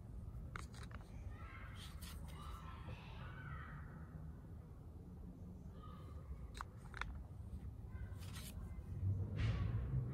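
Tarot cards being handled and flipped, giving a scatter of short sharp clicks and snaps, with a few short pitched calls in the background and a steady low hum under it all.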